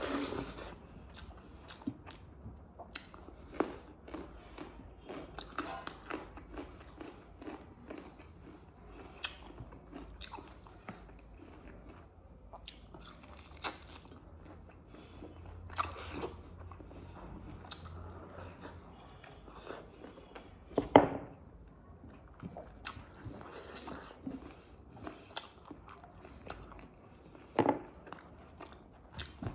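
Close-miked eating sounds: a person chewing and biting pork and rice, with many small wet mouth clicks and a few louder sharp clicks, the loudest about two-thirds of the way through.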